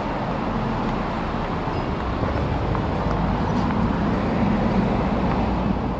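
Street traffic ambience: a steady wash of road noise with a low rumble of passing vehicles.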